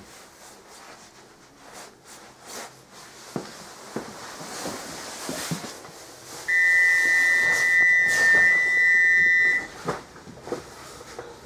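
Class 313 train's door-closing warning: a loud, steady, high electronic tone lasting about three seconds, starting about halfway through, followed by a couple of sharp knocks. Before it, only faint clicks and rattles in the stationary carriage.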